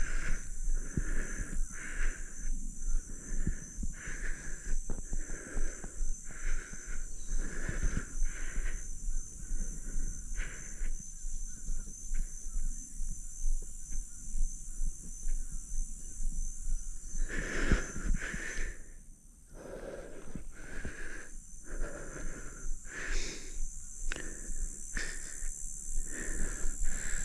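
A man breathing heavily close to the microphone, about one breath sound a second, with a short pause about two-thirds of the way through. A steady high insect drone runs behind it.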